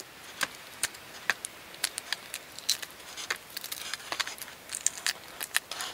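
Shell of a hard-boiled egg being peeled by hand: many small, sharp cracks and clicks at an irregular pace, with bits of shell dropping onto a plastic bag.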